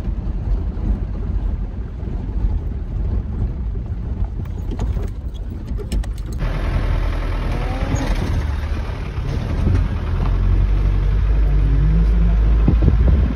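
Car on the move, heard from inside the cabin: a steady low engine and road rumble, with a few knocks and rattles around the middle.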